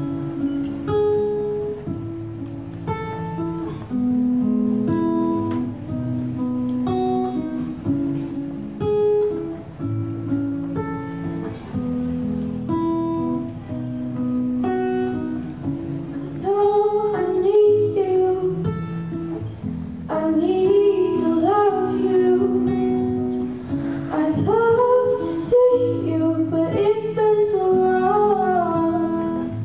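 Acoustic guitar strumming and picking a chord introduction. About sixteen seconds in, two female singers come in with a sung duet over the guitar.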